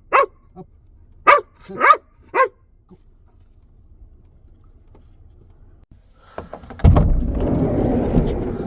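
Belgian Malinois dog barking, four sharp barks in quick succession over the first two and a half seconds, in excited play. Near the end a loud rushing, rumbling noise starts and goes on.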